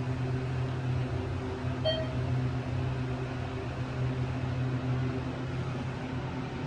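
Hydraulic elevator running with a steady low hum, a Dover unit modernized by ThyssenKrupp. A short beep sounds about two seconds in.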